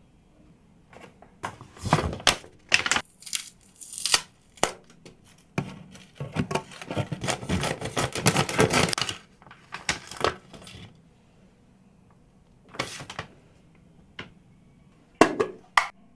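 Irregular crinkling, tearing and crunching as a dog's meal is prepared, with the busiest stretch in the middle and a few sharp clicks near the end.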